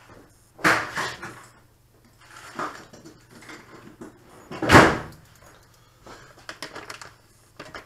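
Knocks and thuds from someone rummaging off to one side for a knife, in three separate strikes. The loudest is a heavy thud about five seconds in. Faint crinkling of a plastic bag follows near the end.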